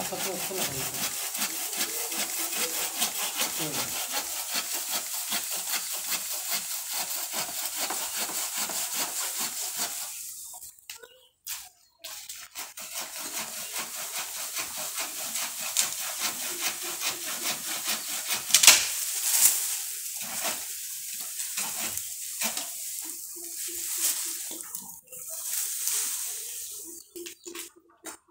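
Hand saw cutting through the woody branches of an orange jasmine (kamini) bush, with fast back-and-forth strokes. The sawing stops briefly about ten seconds in, then goes on in shorter, broken runs, with one loud sharp knock about two-thirds of the way through.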